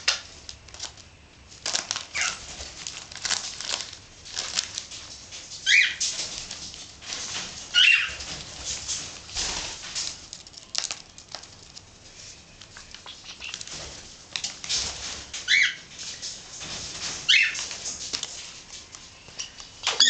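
Princess parrots rustling and crinkling gift-wrapping paper as they clamber over wrapped presents, with about four short high chirps from the birds along the way.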